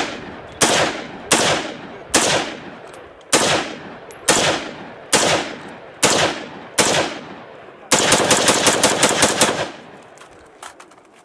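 AR-15-style rifle fired at a range: about eight single shots, roughly one a second, each with an echo trailing off. About eight seconds in, a rapid string of about a dozen shots in a second and a half follows, then the echoes fade.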